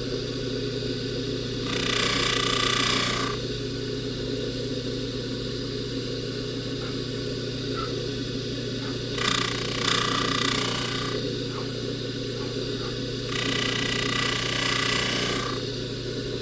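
Jewelry buffing machine running steadily with a low hum. Three times a higher hiss rises for a second or two as the gold chain is pressed against the spinning polishing wheel.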